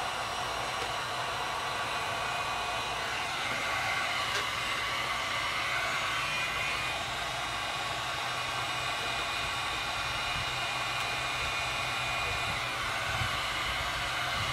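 Heat gun blowing steadily, a constant rushing hiss with a low hum beneath it, as it warms a vinyl tint film to soften it for forming onto a mirror marker lens.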